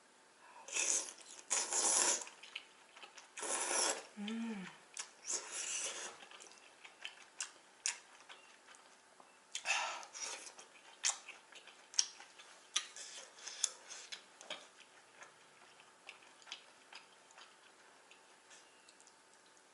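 Jajangmyeon noodles being slurped and chewed close to the microphone: a few loud slurps in the first half and again about ten seconds in, then a run of wet chewing clicks that thins out toward the end.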